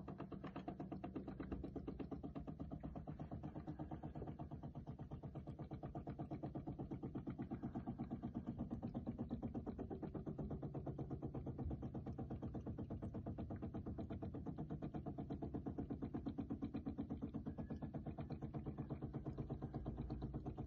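maxiBev BTC-10 coffee maker running its milk-frother rinse cycle: the internal pump hums steadily with a rapid, even pulsing as it pushes rinse water through the frother.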